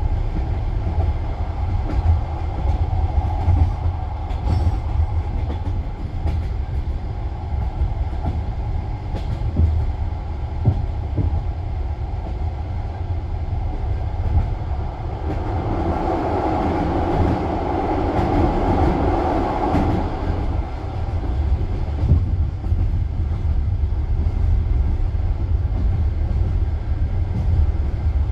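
Passenger train carriage running on the rails: a steady low rumble with now and then the knock of wheels over rail joints. About halfway through the noise swells louder for several seconds, then settles.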